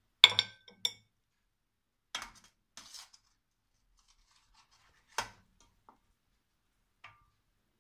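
Cutlery clinking and scraping against dishes as roast potatoes are served onto a plate: a loud clatter right at the start, a few softer clinks and scrapes, and another sharp clink past the middle.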